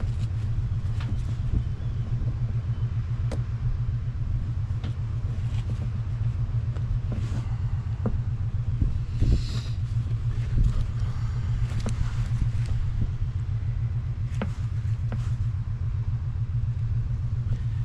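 A steady low engine drone with an even low pulse, with scattered sharp clicks and short scrapes of hand work on top.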